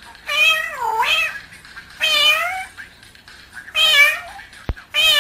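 African grey parrot imitating a cat's meow: four drawn-out meows in a row, the first dipping low in pitch in the middle.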